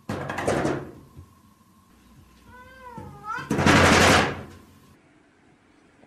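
A cat pawing at a wood-framed glass sliding door, rattling it in its frame twice, with one short meow between the two rattles; the second rattle is the louder.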